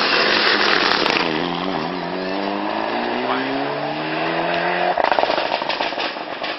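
Mitsubishi Lancer Evolution rally car's engine accelerating hard out of a hairpin, its pitch dipping and then rising steadily through a gear. About five seconds in the revs drop off and a rapid crackling follows.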